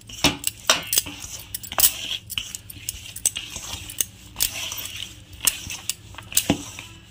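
Bangles clinking in quick irregular clicks as a hand rubs oil into dry flour in a steel bowl, with a soft scraping of flour against the metal.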